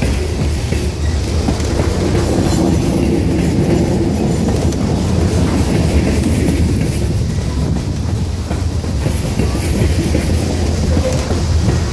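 CSX freight train rolling past, a steady rumble of steel wheels on rail with clacking over the rail joints.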